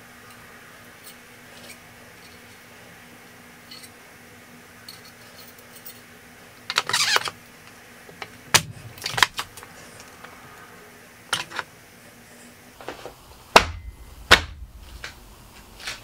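Metal clicks, a brief scraping rattle and knocks as a mountain-bike crankset is handled and its spindle is pushed into the bottom bracket bearings by hand. Two louder knocks come a couple of seconds before the end.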